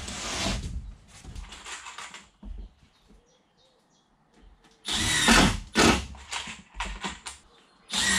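Cordless drill running in several short bursts, with a longer run about five seconds in.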